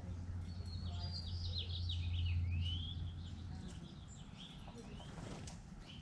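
A songbird singing one phrase of quick notes that step downward, ending in a short rising-and-falling whistle, over a steady low hum that stops about three and a half seconds in.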